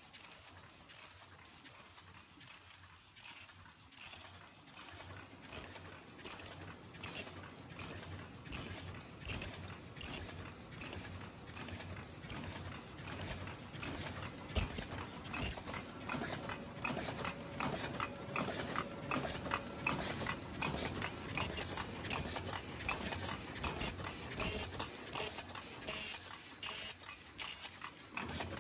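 High-speed paper bowl forming machine running: a fast, regular clatter of mechanical clicks and knocks from its moving parts, with a few louder knocks about twice a second in the first seconds.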